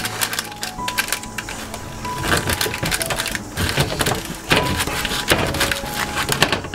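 Knife cutting through a freshly baked puff pastry tart, the flaky crust crackling and crunching in quick irregular clicks, over soft background music.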